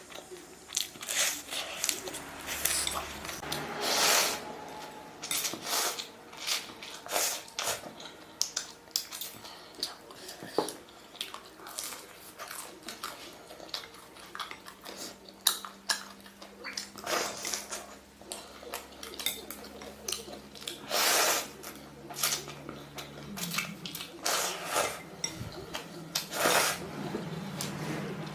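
Eating a bowl of spicy instant noodles with fried dumplings: irregular clinks of chopsticks against the bowl, and a few longer slurps.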